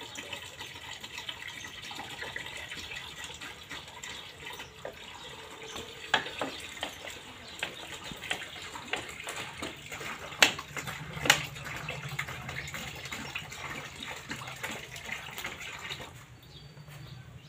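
Cow urine poured from a plastic bottle in a thin stream into a basin of cow-dung water, splashing steadily while the Beejamrit seed treatment is mixed. Two sharp clicks come a little after midway, and the pouring stops near the end.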